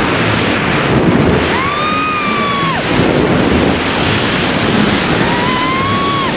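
Loud, steady wind rush over the microphone of a tandem skydiver in freefall, with two long, high-pitched held yells.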